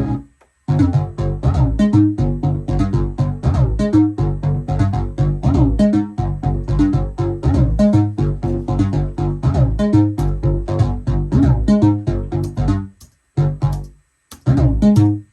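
Synthesizer playing a rhythmic sequenced pattern of short, sharply struck notes over a bass line. It stops about 13 seconds in, then starts again twice in short bursts near the end.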